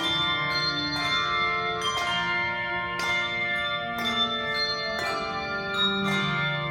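Handbell choir playing, with chords of bells struck about once a second, each left to ring on into the next.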